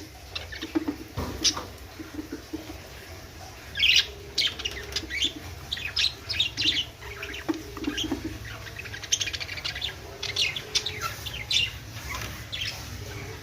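A flock of budgerigars chirping and chattering, with quick bursts of high chirps coming in clusters, the loudest about four seconds in and again near the ten-second mark.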